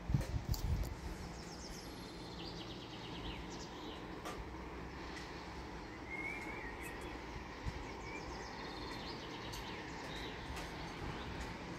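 Small birds chirping and trilling now and then over a steady outdoor background hiss, with a short low rumble on the microphone right at the start.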